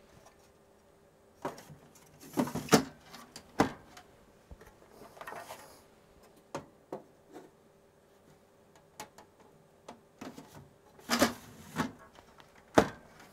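Printed circuit cards being handled and slid into a Quantel DPB-7001 Paintbox's card cage: scattered clicks, knocks and a brief scrape as the boards knock against the rack and seat in the backplane connectors. The sharpest knocks come a little under 3 s in and near the end.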